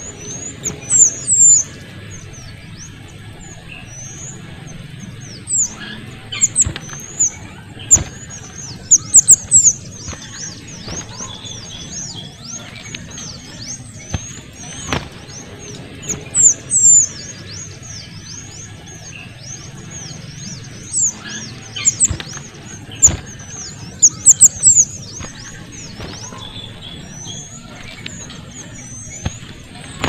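Kuniran (mantenan kecil) songbird calling in repeated bursts of very high, thin, quick downslurred chirps, a cluster every few seconds, over a steady low background rumble.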